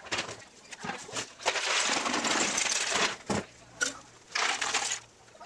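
Wood chunks rattling and clattering in a carried bucket. A long dense clatter starts about a second and a half in and lasts about a second and a half, followed by a few shorter rattles near the end.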